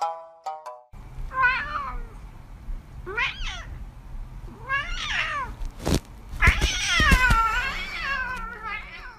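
A domestic cat meowing four times, each call rising and falling in pitch; the last one is the longest and loudest, drawn out and wavering.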